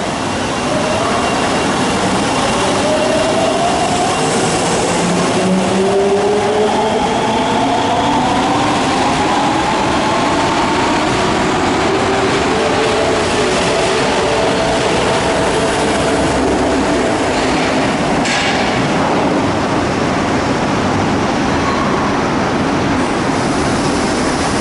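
Osaka Subway 22 series train pulling out of the station: the traction motors' whine rises in pitch as it accelerates, with steady wheel and running rumble.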